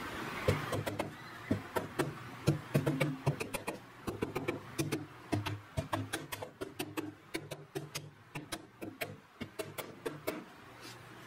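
Small hammer tapping wooden dowels into a wooden board: many light, quick, irregular strikes.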